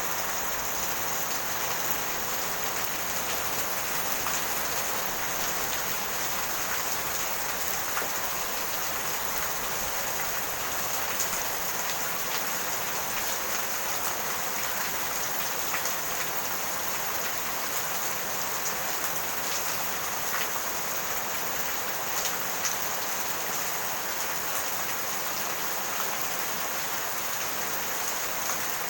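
Steady rain falling, an even hiss with faint drop clicks scattered through it.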